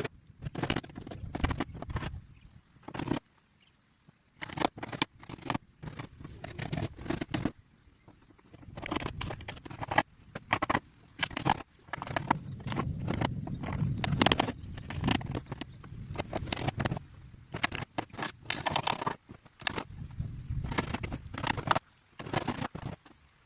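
Wood construction work with hand tools: a run of irregular knocks and clicks mixed with scraping and rubbing of wood, broken by a few short pauses.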